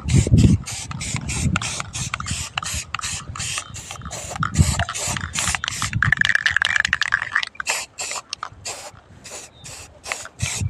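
Aerosol spray-paint can hissing in short, rapid bursts, about three or four a second, as green paint is sprayed onto a cast-iron tractor wheel weight.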